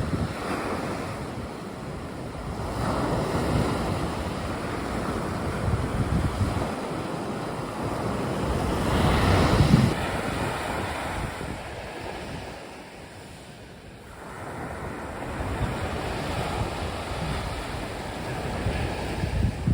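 Sea waves washing onto the beach, swelling and receding, with the biggest surge about nine seconds in and a lull a few seconds later. Wind buffets the microphone with low rumbles.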